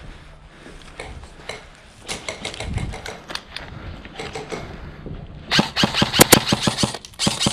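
Scattered faint clicks of distant airsoft fire, then, about five and a half seconds in, an airsoft electric gun opens up on full auto in rapid rattling bursts, with a short break near the end.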